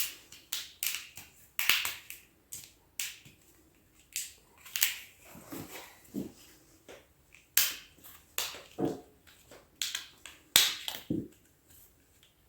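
A run of irregular clicks and knocks, about two or three a second, from parts and tools being handled while the snowmobile's throttle assembly is put back together.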